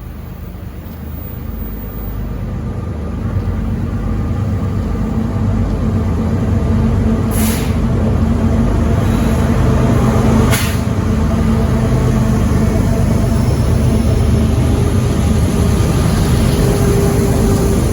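Freight train's diesel locomotives approaching, growing louder over the first few seconds, then a steady low rumble and engine drone as the train runs past. A few short, sharp hissing sounds cut in, two of them in the middle and one at the very end.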